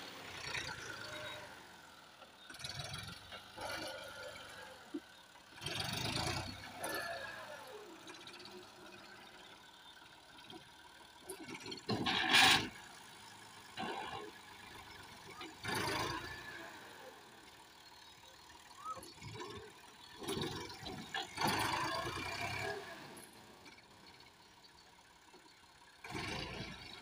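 Massey Ferguson 260 Turbo tractor's three-cylinder diesel engine working under load as it pushes chopped fodder with a front blade. The sound swells and eases every few seconds, with a louder burst about twelve seconds in.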